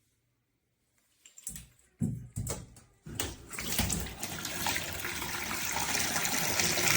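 A few knocks and handling sounds. Then, from about three seconds in, water sprays steadily from a handheld shower head, growing a little louder.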